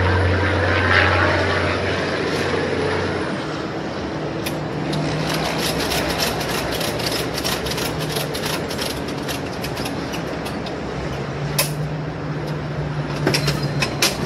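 Ratchet strap on an appliance hand truck being cranked tight around an upright vending machine: a quick run of sharp clicks from the ratchet, then a few more near the end. A steady engine hum runs underneath.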